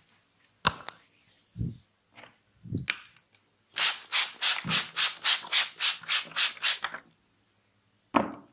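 Hands rubbing briskly in a massage: about a dozen quick, even strokes at roughly four a second. Before them come a sharp click and a couple of soft thumps, and another sharp click comes near the end.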